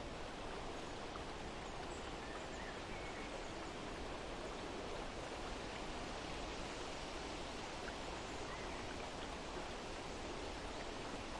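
Steady outdoor ambience, an even rushing hiss, with a few faint bird chirps here and there.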